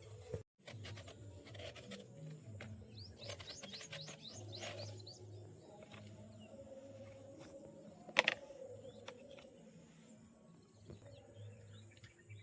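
Birds chirping in quick rapid runs over faint background music, with a single sharp knock about eight seconds in.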